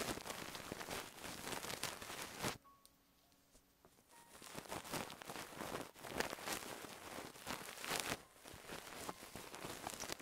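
Fast, dense scratching and brushing of an ASMR feather ear-cleaning rod against the microphone. It stops for about two seconds a little way in, then starts again.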